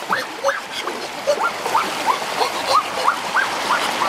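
Waterfall water splashing and rushing around hands working in a rock pool, with a run of short chirping calls from an animal over it, each rising then falling in pitch, about three a second.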